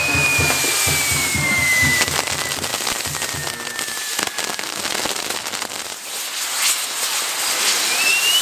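Castillo fireworks burning: spinning fire wheels crackling and hissing densely, with many sharp pops. A long, thin whistle falls slowly in pitch over the first few seconds, and a low rapid pulsing runs under it until about four seconds in.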